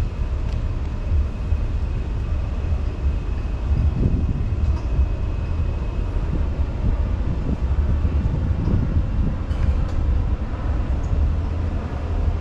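Wind buffeting the camera's microphone outdoors: a steady, deep, fluttering rumble.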